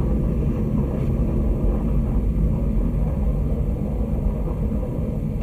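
Deep, steady rumble of a rocket blasting off, played as the soundtrack of a projected show over a lounge's sound system.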